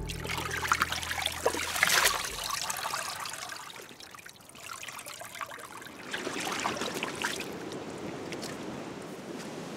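Wet elk hide sloshed and squeezed by hand in a plastic tub of milky brain-tanning solution, then lifted out so the liquid trickles and splashes back into the tub. The splashing is loudest in the first couple of seconds and gives way to quieter rustling of the wet hide.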